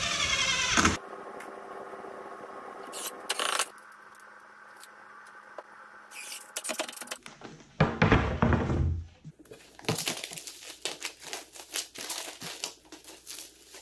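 Cordless impact driver driving a pocket-hole screw into a pine frame, stopping about a second in. Later there is a heavy knock, then a run of crackling as the plastic wrapping is handled and peeled off a pine project panel.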